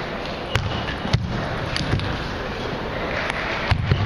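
Table tennis ball clicking sharply off the table and bats, several single clicks spread out and then a quicker run of them near the end as a rally starts, over the steady background noise of a busy playing hall.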